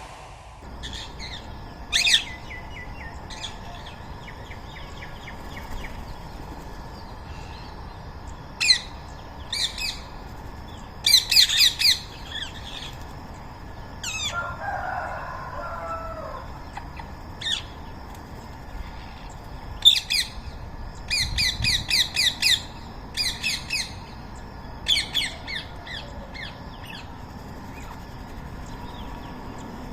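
Rose-ringed parakeets giving shrill, grating screech calls, singly and in quick runs of four or five, over steady outdoor background noise; a lower, softer call comes about fifteen seconds in.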